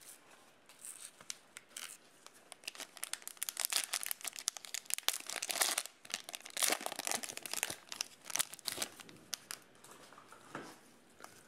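Plastic trading-card pack wrapper being torn open and crinkled in the hands. The sound is an irregular run of crackling, busiest and loudest in the middle, easing off near the end.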